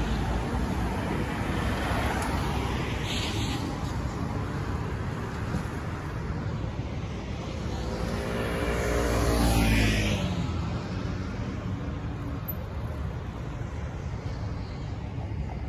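Road traffic passing along a multi-lane street: cars drive by in a steady wash of tyre and engine noise. About two-thirds of the way through, one vehicle passes close and loud, its engine note rising and then falling away.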